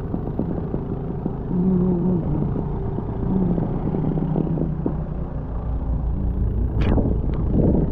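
Steady low rumble of wind and riding noise on the microphone of a bike moving through a snowstorm. A short humming tone comes in twice in the first half, and a few sharp clicks sound near the end.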